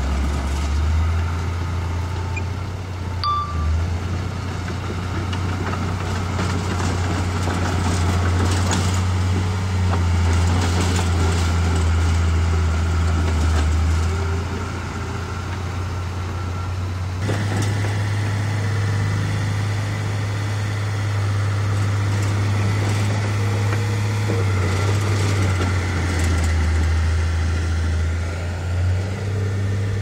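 Diesel engine of heavy earthmoving machinery running steadily, its note shifting a little up and down as it works. The sound changes suddenly a little over halfway through.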